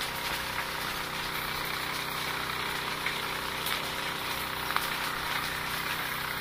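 An engine idling steadily with an even low hum. A few light clicks sound over it, one sharper about three-quarters of the way in.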